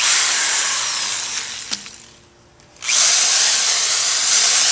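Corded Craftsman electric drill boring holes through a corrugated plastic downspout extension pipe, in two runs: the first fades out after about two seconds, and the second starts about three seconds in and carries on.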